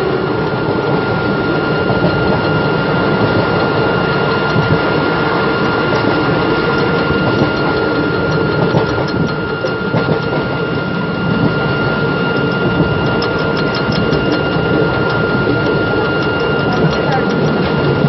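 Express passenger train running at speed, heard through an open coach window: a steady rush of wheels on rail and wind with a steady high whine, and a quick run of light rail clicks near the end.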